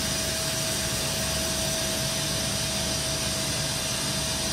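CNC milling machine running: a steady hum and whir with a constant mid-pitched tone and no change in level.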